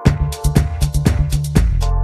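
Background electronic dance music with a steady beat, about four beats a second, and a deep bass line.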